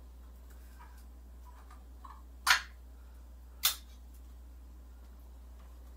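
Two sharp metallic clinks of kitchen hardware about a second apart, each ringing briefly, with a soft room background between them.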